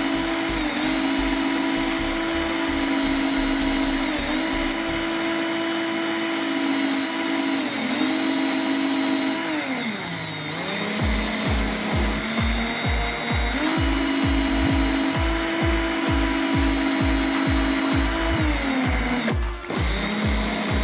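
Cordless drill running a grinding stone bit while a small wooden stick is pressed against it and sanded. The motor's whine sags in pitch several times as the wood loads it, most deeply about ten seconds in, over a steady grinding hiss.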